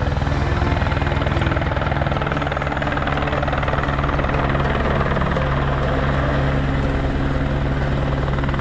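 Light helicopter hovering close to the ground, its rotor beating in a fast steady chop over the engine's drone, with a thin high whine joining about halfway through; the rotor downwash is whipping up a dense dust cloud.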